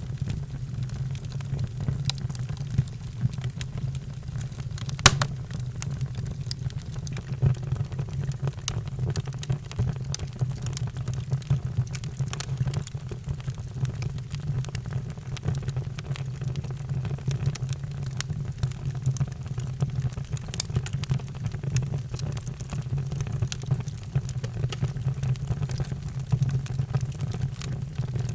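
Wood fire crackling, with scattered sharp snaps and one loud pop about five seconds in, over a steady low rumble.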